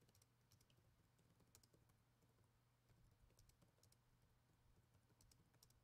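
Faint typing on a laptop keyboard: scattered soft key clicks over a low, steady hum.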